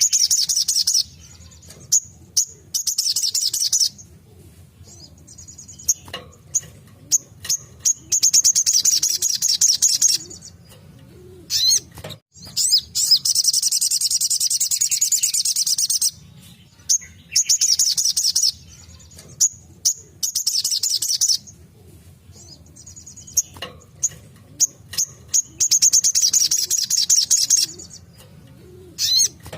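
Spiderhunter (sogok ontong) singing its rapid-fire 'tembakan' song: bouts of fast, high-pitched chattering trills lasting one to four seconds each, repeated with short pauses and a few single sharp notes between them. A faint low hum runs underneath.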